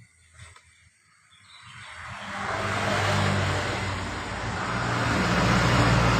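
Mitsubishi Xpander's petrol engine revving up about a second and a half in and then held at high revs, its exhaust rushing loudly. The engine is being run hard during a carbon-cleaning treatment to blow loosened carbon deposits out of the exhaust.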